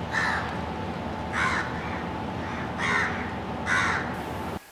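Crow cawing four times, short harsh calls roughly a second apart, over a steady low background hum.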